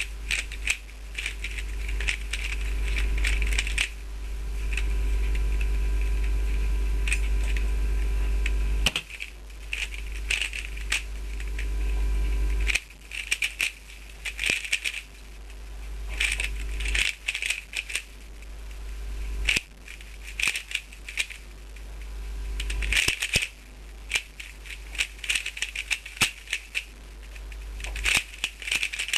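Dayan Guhong 3x3 speedcube being turned at speed during a timed solve: rapid plastic clacking of the layers, in quick bursts broken by brief pauses.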